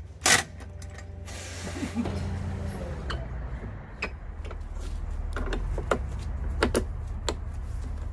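Metal clanks and clicks of tools and parts as a rear spare-tire bracket is bolted on: a sharp clack near the start, a brief whir with a hiss about a second in, then scattered light knocks and clicks over a steady low hum.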